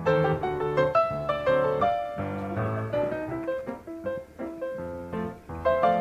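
Background piano music: a melody of short notes, several a second, over a lower accompaniment.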